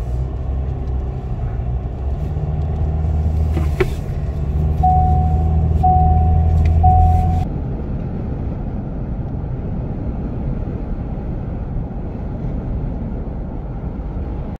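Pickup camper driving, with engine and road noise heard inside the cab: a steady low rumble that swells in the middle and eases off after about seven and a half seconds. Three short, evenly spaced beeps sound about five to seven seconds in.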